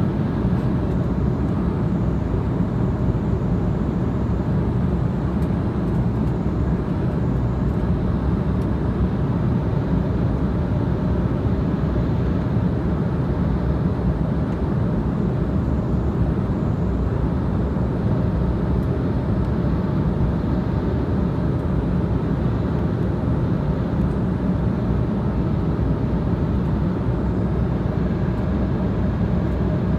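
Steady low rumble of engines and rushing air inside an airliner's passenger cabin in flight, even and unchanging throughout.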